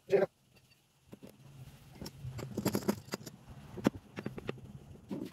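Small pieces of wood knocking and clicking irregularly as they are handled on a workbench, after a short pitched sound at the very start.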